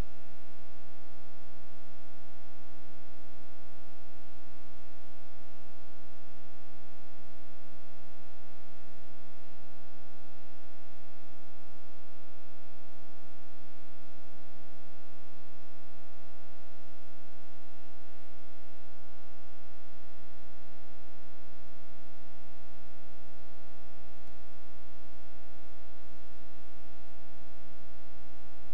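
Steady electrical hum with many overtones, unchanging throughout, heard in place of a soundtrack on a silent film transfer.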